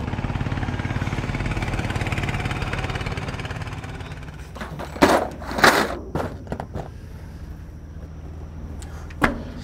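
A river cargo boat's engine running with a fast, even beat, fading after about four seconds; then two loud clanks about five and six seconds in, a few lighter knocks, and another knock near the end.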